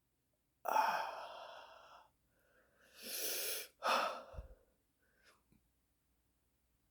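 A person sighing and breathing heavily between long burps. A long breath out comes about half a second in and fades over a second and a half, a second breath follows about three seconds in, and a shorter one near four seconds ends in a low thud.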